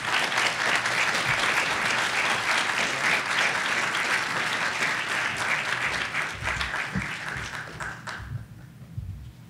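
Audience applauding, a dense steady clapping that thins out and stops about eight seconds in.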